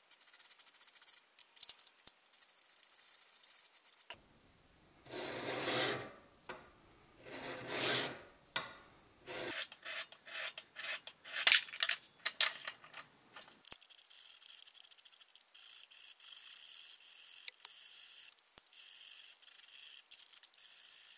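Steel hand file scraping across the flat of a steel knife blade held in a vise, draw-filing it smooth: repeated rasping strokes. Two long, heavier strokes come about five and eight seconds in, then quicker, lighter strokes follow.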